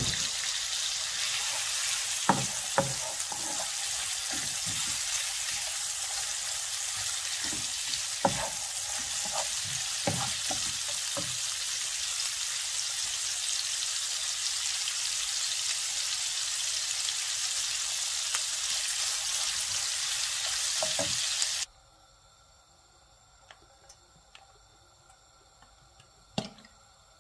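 Sliced duck breast frying in hot oil in a skillet: a steady sizzle with occasional sharp clicks and knocks. The sizzle cuts off suddenly about three-quarters of the way through, leaving near silence with a few faint ticks and one knock near the end.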